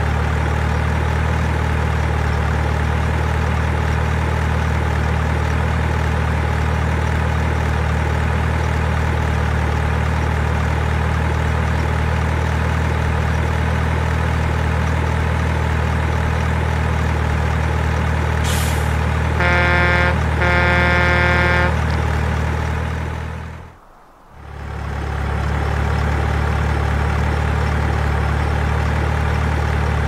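Truck engine sound effect running with a steady deep rumble. A short hiss comes a little past the middle, followed at once by two blasts of a truck horn, and a few seconds later the engine fades out briefly and back in.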